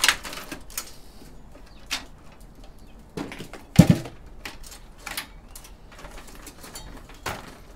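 Scattered clicks and knocks from handling a desktop computer case and its parts, with one heavier knock about four seconds in.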